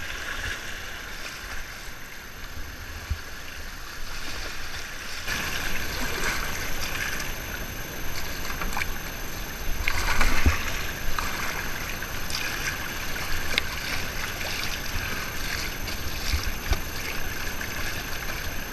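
Fast river current rushing and splashing around a whitewater kayak, with short splashes of paddle strokes now and then, the loudest about ten seconds in.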